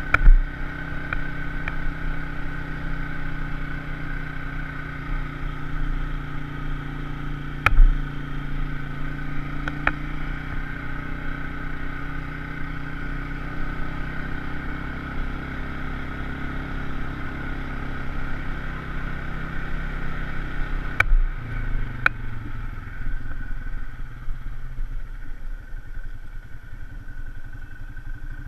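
Side-by-side UTV engine running steadily while driving along the trail, with a few sharp knocks; the engine note drops lower about three quarters of the way through.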